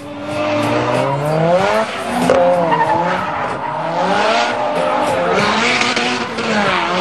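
Nissan S13's turbocharged SR20DET four-cylinder engine revving hard through a drift, its pitch climbing about half a second in and then rising and falling with the throttle. The tyres squeal and hiss as the car slides sideways.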